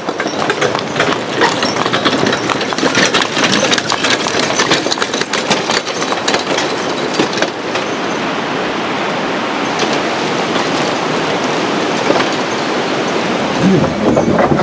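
Wooden cart rattling and clattering as it rolls along a gravel road, over a steady rushing noise.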